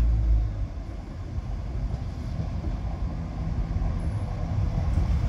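East Midlands Railway regional diesel multiple unit pulling out of the station, its engines giving a low, steady rumble.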